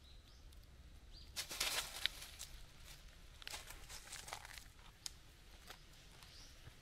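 Rustling and crackling, loudest in a burst about a second and a half in, with scattered smaller rustles and clicks after it. Faint short high chirps of small birds sound now and then.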